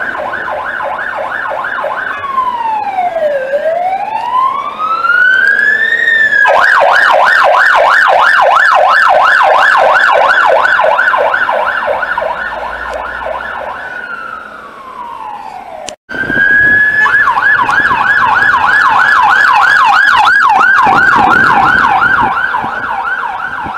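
UK police cars' electronic sirens on an emergency run, switching between a slow falling-and-rising wail and a fast yelp of about four cycles a second. The sound breaks off for a moment about two-thirds of the way through, then a siren comes back in wail and goes into the yelp again.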